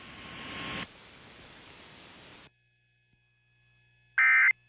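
Radio hiss and static on the FM broadcast, which cuts out about two and a half seconds in to a faint low hum. Near the end, a short, loud warbling data burst: the first of the EAS end-of-message SAME bursts that close the alert.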